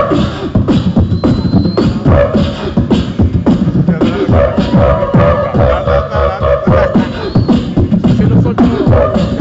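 Beatboxing into a hand-cupped microphone through a PA system: a fast run of mouth-made kick and snare strokes, with a held note over the beat for a few seconds in the middle.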